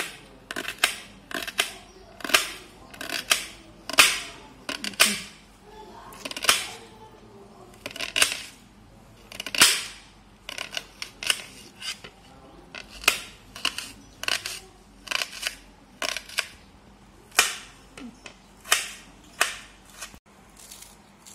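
A long series of sharp knocks or chops at an uneven pace, about one to two a second.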